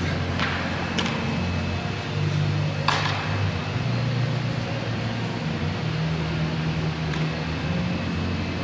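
Steady low hum of an indoor hall's ventilation, with a few sharp smacks of a baseball striking a glove or bat during infield drills, the loudest about three seconds in.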